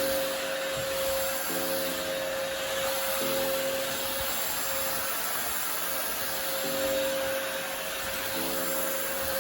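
Goblin GSV501W-19 cordless stick vacuum cleaner running steadily on its maximum power mode, a constant whine over the rush of airflow, as it sucks grain off a rug.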